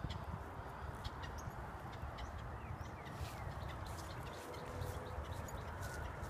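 Video-game outdoor ambience: small birds chirping over a steady low wind-like rumble, with scattered short ticks and steps.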